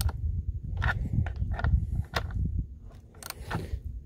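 Metal socket clicking and scraping against the double-nutted bar-stud nuts of a Stihl chainsaw as the stud is turned in by hand: a string of irregular sharp metallic clicks over a low rumble.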